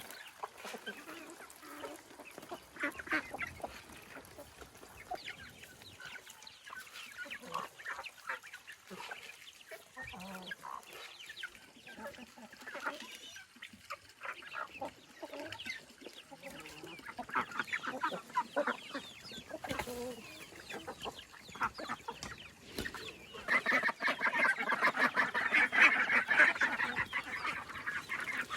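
Farmyard chickens clucking in many short calls, with a louder, denser burst of calling over the last few seconds.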